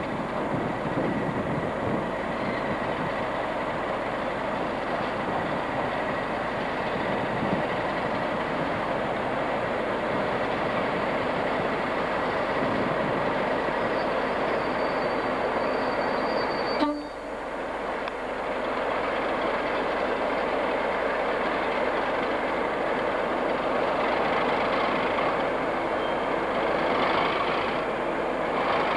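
Diesel locomotives running at a station: a Class 37 with its English Electric V12 engine, and a Class 47 drawing in alongside, making a steady engine noise with a thin high whine through the first half. About seventeen seconds in there is a sharp click and a brief drop in level, after which the engine noise carries on.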